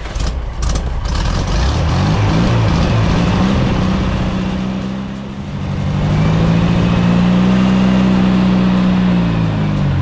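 Classic VW Beetle's air-cooled flat-four engine revving: the pitch swings up and down a few times, then climbs and holds high for several seconds before dropping near the end.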